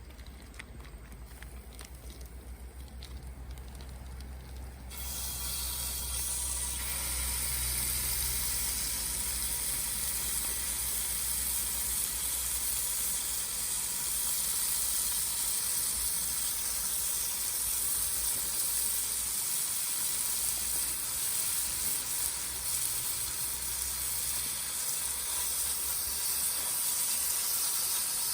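A steady, high hiss that starts abruptly about five seconds in and holds, over a low rumble in the first seconds.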